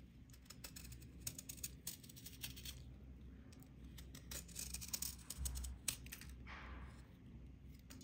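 Serrated blade scraping the face of a block of dry red clay: a quick run of dry, crackly scrapes as crumbly shavings come off easily, ending in a softer swish near the end.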